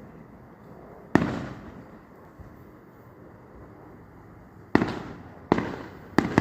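Fireworks shells bursting: a single bang about a second in, then three more in quick succession near the end, each fading off in a rumbling echo.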